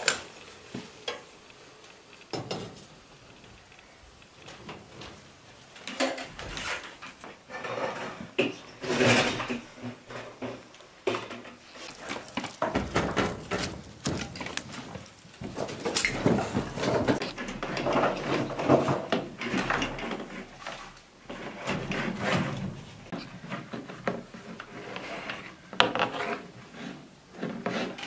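Handling noise around a cast-iron wood-burning cookstove. A metal teapot lid clinks, then there are scattered wooden knocks and metal clatter as the firebox is stoked with wood.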